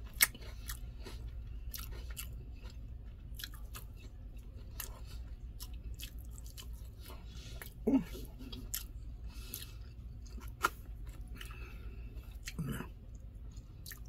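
A person chewing food with sharp mouth clicks and lip smacks throughout, and a couple of brief low voiced sounds about eight and thirteen seconds in. A steady low hum runs underneath.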